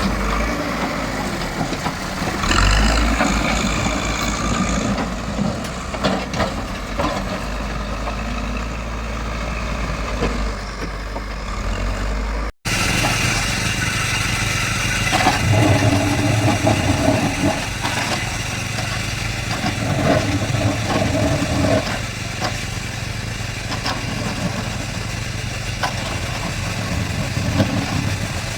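JCB backhoe loader's diesel engine running and working, rising louder in spells as it takes load. About halfway through it breaks off abruptly for a moment and comes back sounding different.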